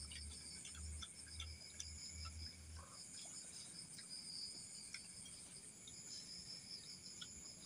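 Crickets chirping faintly in a steady, high-pitched, finely pulsing trill, with scattered small clicks.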